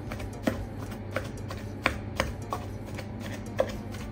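A pestle pounding a sticky mixture of minced beef, garlic and sticky rice in a mortar: about six dull strikes at uneven intervals. The mixture is being pounded until it turns sticky and stops clinging to the mortar and pestle.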